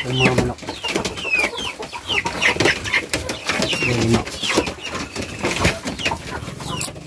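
Chicks peeping over and over in short, falling chirps, with a hen giving a low cluck near the start and again about four seconds in.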